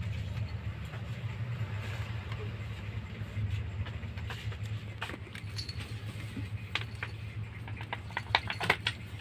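A young cat playing with a balloon's string, with light clicks and rustles that come thicker in the second half and sharpest near the end. A steady low hum runs underneath.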